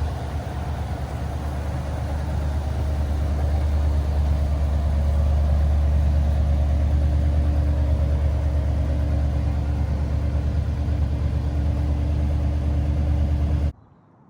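A 1978 Ford Country Squire's 351 V8 running steadily with a deep low drone, growing louder over the first few seconds and then cutting off suddenly near the end.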